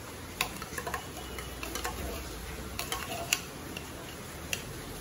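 Metal spoon scraping and tapping against the inside of a tin can while scooping out thick condensed soup: irregular clicks and scrapes, about a dozen, spread unevenly.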